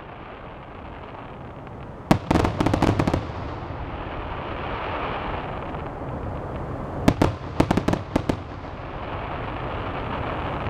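Aerial fireworks bursting. A loud bang about two seconds in is followed by a second of rapid crackling pops, and another bang with a run of pops comes about seven seconds in, over a steady background hiss.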